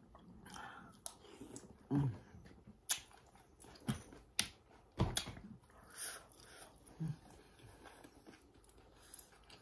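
Quiet mouth sounds of someone eating pho noodle soup: chewing and slurping, with scattered sharp clicks and a few brief low sounds.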